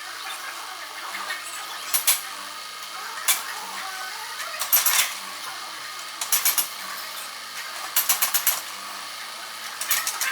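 Excavator working a demolition, its machine noise steady, broken every second or two by sharp clanks and short runs of rattling clatter.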